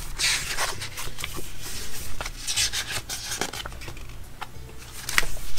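Paper sticker sheets rustling and swishing as the pages of a sticker book are turned and handled, with scattered light ticks. A sharper tap near the end is the loudest sound.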